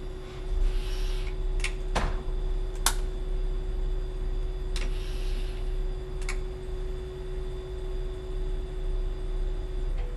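Cab interior of a Y-train diesel railcar under way: a steady low running rumble with a steady hum that stops near the end, broken by about five sharp clicks at uneven intervals, with two brief hisses.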